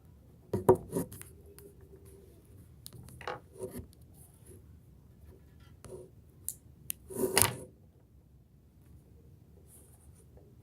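Scattered handling noises from paper and crayons: a few short knocks and rubs, and a longer scraping rustle about seven seconds in, the loudest of them.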